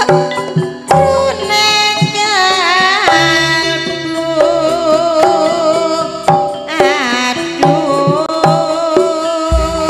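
Live Javanese campursari music: kendang hand-drum strokes keep a steady beat under a wavering, ornamented melody line with singing.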